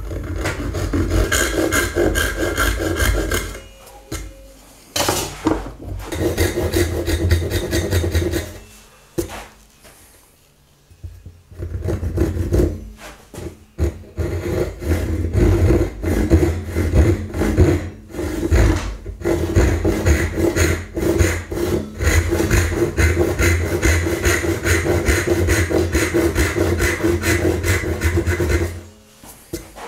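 Japanese ryoba pull saw sawing dovetail cuts into the end of a wooden board: quick, even rasping strokes, stopping briefly twice and ending near the end.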